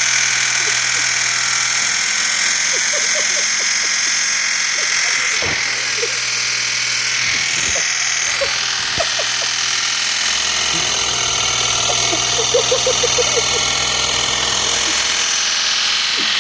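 BMW N52 straight-six held at a steady raised speed of around 3,000 rpm to bleed its hydraulic lifters, running with loud lifter ticking. The lifters have not yet filled with oil.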